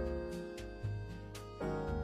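Background music with a steady beat: held chords over a bass line that changes note every half second or so.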